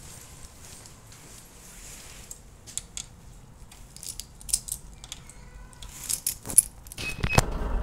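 Keys jangling and clicking in hand at an apartment-block entrance door, then a short high electronic beep from the door intercom about seven seconds in, followed at once by a loud clunk.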